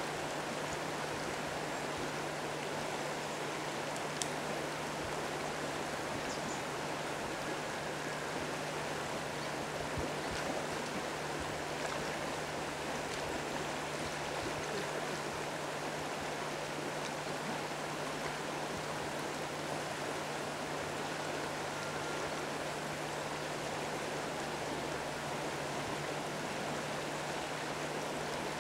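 Steady rush of flowing river water, with a low steady hum underneath.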